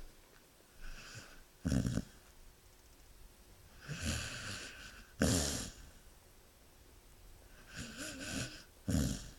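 A sleeping animal snoring: three breaths, each a drawn-in hissing intake followed by a short, louder snort out, about every three seconds.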